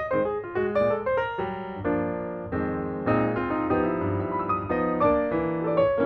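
Background piano music: a light tune of short notes, with held chords in the middle.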